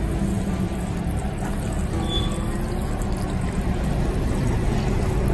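Water running from a handheld shower sprayer onto wet hair and into a salon backwash basin: a steady rushing spray as the hair is rinsed.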